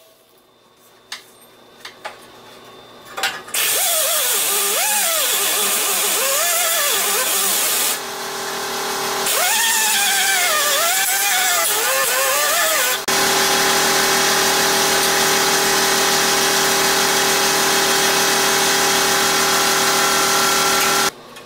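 A handheld die grinder with a small abrasive disc grinding and surface-cleaning the sheet-metal radiator core support. It starts about three and a half seconds in after a few light knocks, and runs at a high whine until shortly before the end. Its pitch wavers and dips while the disc is pressed against the metal, then holds steady in the later part.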